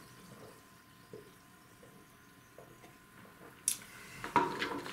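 Faint sips and swallows of water from a glass mug, then a sharp clink near the end as the glass mug is set down.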